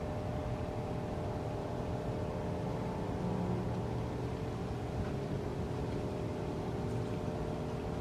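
Steady low rumble with a constant mechanical drone of several held tones, the sound of a running motor, unchanging throughout.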